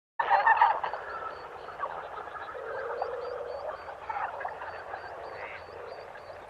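A dense chorus of animal calls starting abruptly, with a short high chirp repeating about twice a second over it.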